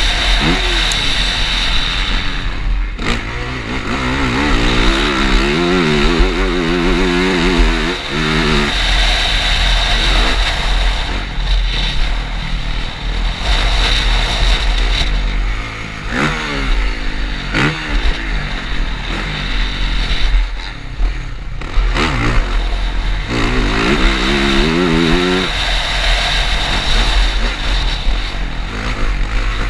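Yamaha motocross bike engine revving hard up and down through the gears, the throttle chopped and reopened several times over jumps, with heavy wind buffeting on the helmet-mounted microphone.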